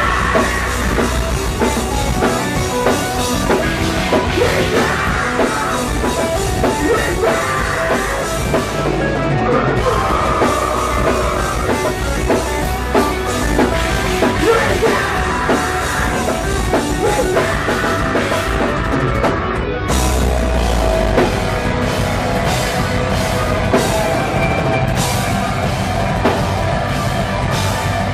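Metalcore band playing live: distorted electric guitars, pounding drum kit and screamed vocals in a loud, dense mix, as heard from within the crowd.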